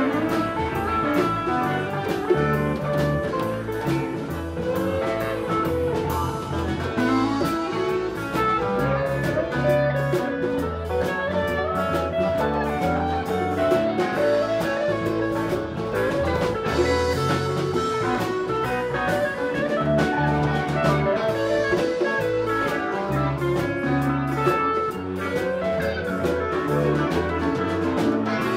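Live band playing an instrumental passage: guitar over a walking bass line and drum kit, continuous and steady in level.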